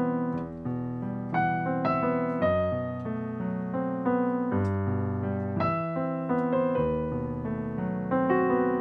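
Electric piano sound from a Yamaha stage keyboard playing an instrumental intro: held chords over low bass notes, changing every second or two.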